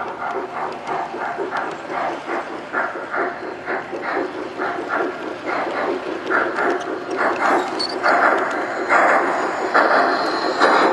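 G-gauge model steam locomotive chuffing in a steady rhythm, about three puffs a second, growing louder over the last few seconds.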